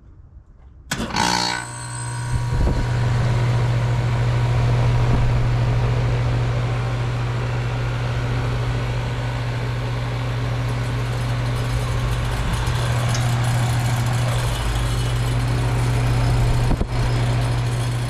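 2012 Goodman heat pump outdoor unit starting up about a second in, with a brief loud rush, then the compressor humming steadily under fan and airflow noise. It is the unit coming back into heating at the end of a defrost cycle.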